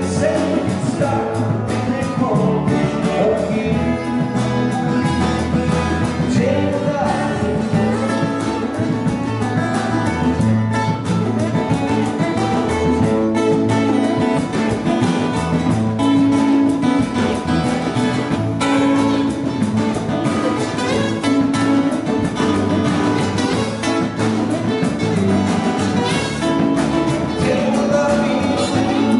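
A small live band playing a country-style song: strummed acoustic guitars over electric bass, congas and a drum kit.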